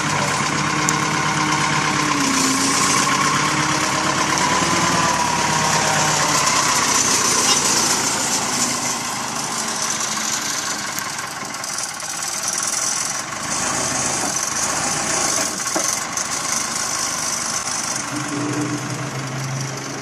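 Tractor loader backhoe's engine running steadily as the machine drives and maneuvers, its pitch dipping and then rising again in the first few seconds.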